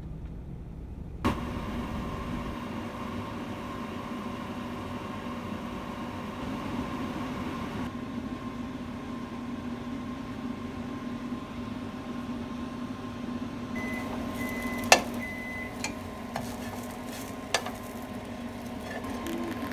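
Microwave oven running with a steady hum, then three short beeps as it finishes and a sharp click, as of the door opening; another click comes a couple of seconds later.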